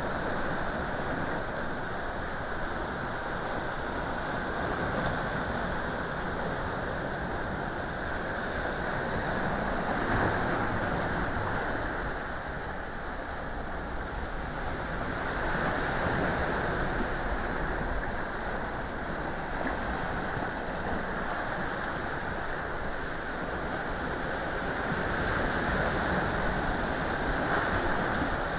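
Sea waves breaking and washing up a sandy, rocky shore: a steady rush of surf that swells and eases as the waves come in.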